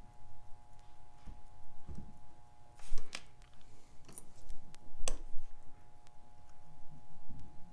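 Small metal watchmaker's tools clicking and scraping against the parts of a Seiko 6105 diver's watch as its movement and case are put back together. The loudest is a sharp click about three seconds in, with another about five seconds in.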